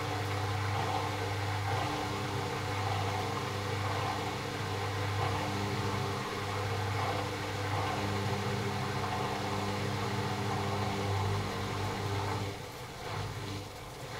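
AEG Lavamat L88489FL washing machine running with a steady motor hum and the drum turning. It winds down and goes quieter about twelve and a half seconds in.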